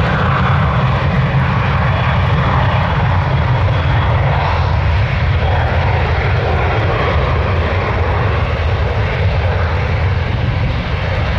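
Cessna Citation XLS business jet on its takeoff roll, its two Pratt & Whitney Canada PW545B turbofans running at takeoff power, a loud, steady jet noise as it accelerates down the runway toward lift-off.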